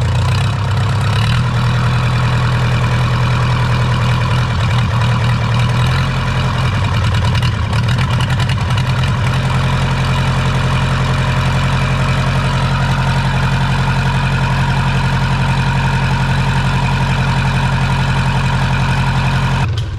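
Freshly rebuilt Yanmar 4JH3E four-cylinder marine diesel running steadily at idle, then shut off suddenly near the end.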